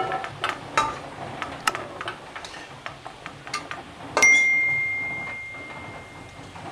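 Metal spoon scraping and tapping against an aluminium kadai and a steel plate as fried potato chunks are lifted out. About four seconds in, one sharp metal clink rings on as a single clear tone that fades over about two seconds.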